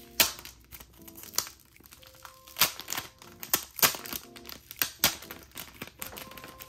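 Foil blind bag crinkling and crackling in irregular sharp bursts as hands pull it open, over soft background music.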